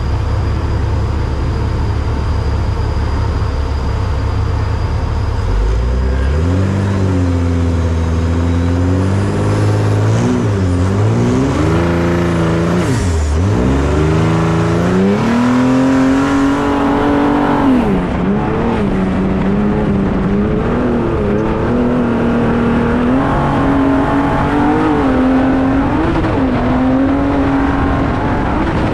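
Trophy truck's turbocharged Ford EcoBoost engine. A steady low rumble for the first few seconds, then from about six seconds in the revs climb and fall repeatedly, with several sharp dips like gear changes or lifting off. The engine then holds a wavering, higher note as the truck runs at speed.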